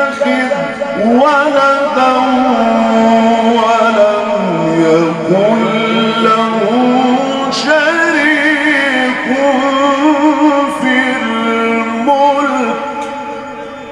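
A man reciting the Quran in the melodic mujawwad style, holding long notes ornamented with wavering pitch. The phrase dies away near the end.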